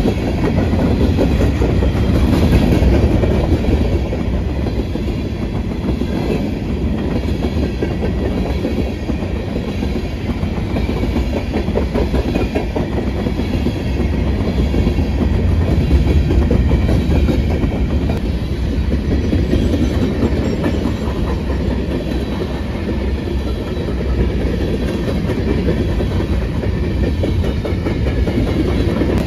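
Freight cars of a BNSF grain train rolling past at close range: a steady, loud rumble of steel wheels on the rails.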